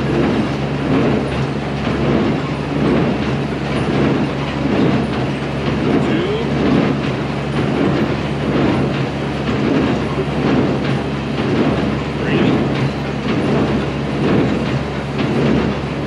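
Machinery running steadily: a low engine hum with a rhythmic clatter that repeats a little more than once a second.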